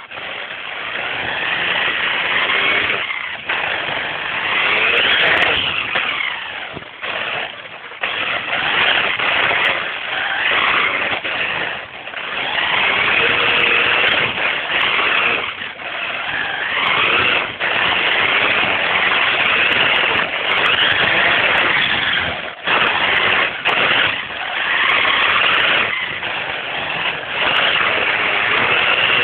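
High-pitched whine of a radio-controlled car's motor, its pitch gliding up and down as it speeds up and slows. It eases off briefly several times and then revs again.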